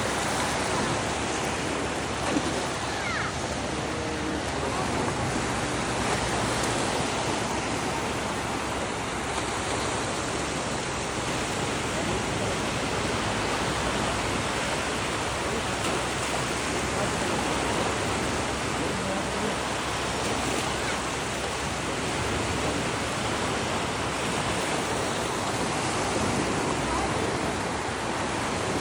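Sea surf washing onto a shore: a steady rush of breaking waves that swells and eases gently.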